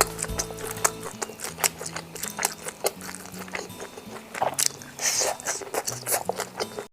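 Close-up eating sounds: irregular biting, crunching and chewing, over background music with steady held notes.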